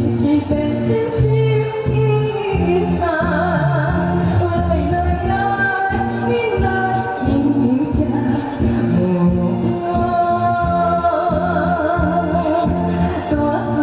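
Taiwanese Hokkien pop song sung over a backing track, with a wavering sung melody over a steady, repeating bass line.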